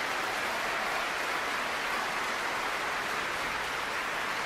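Large audience applauding steadily in a concert hall: dense, even clapping with no let-up.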